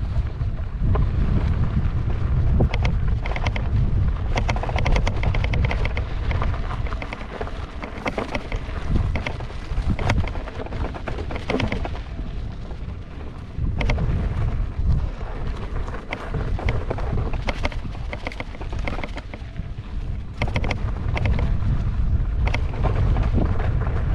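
Heavy wind buffeting the microphone on a moving electric unicycle, over the rumble and crunch of its tyre on a loose dirt trail, with frequent small knocks and rattles from gravel and bumps.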